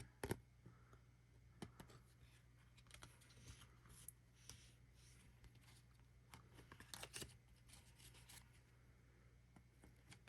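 Faint handling noise of trading cards: scattered soft clicks and rustles as cards are slid and flipped, over a low steady hum.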